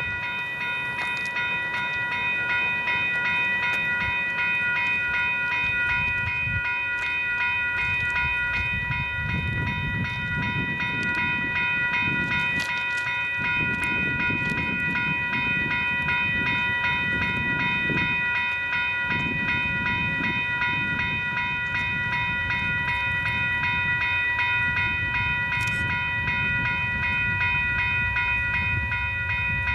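Railroad grade crossing bell ringing steadily and rapidly, with the low rumble of an approaching Union Pacific train building from about eight seconds in.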